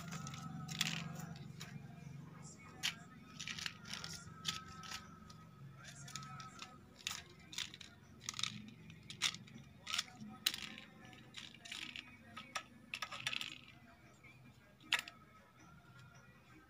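A kitten pawing and batting at a plastic bag, paper and a pen on a tile floor: irregular crinkles, rustles and sharp clicks, thinning out near the end, over a low steady hum.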